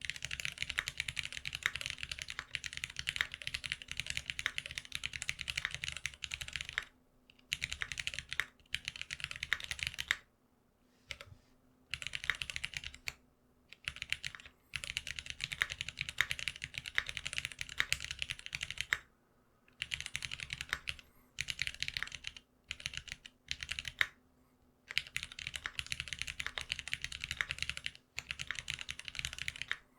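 GeonWorks F1-8X custom mechanical keyboard with lubed Cherry retooled Black linear switches being typed on: fast runs of keystrokes broken by several short pauses.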